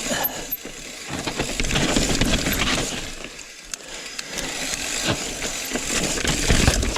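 Mountain bike rattling down a rough, rocky trail: many quick clicks and clatters from the chain and frame over the rumble of the tyres, with wind hissing on the microphone.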